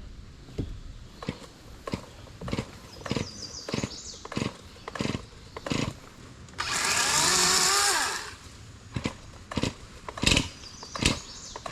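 A two-stroke gas chainsaw being pull-started without success: a run of quick starter-cord pulls, and about seven seconds in the engine fires for a second or so, drops in pitch and dies.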